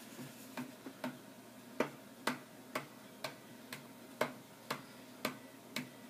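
Sharp clicks about two a second, made to set off a DJ light's sound-active mode so that its colours change.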